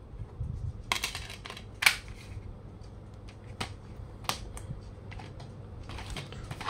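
Plastic DVD cases being handled and set down on a wooden desk: scattered sharp clicks and taps, the loudest about two seconds in.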